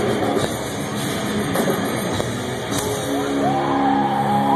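Metal band playing live through a loud PA: distorted guitars and drums, heard from the crowd. About three seconds in the dense playing gives way to long held notes.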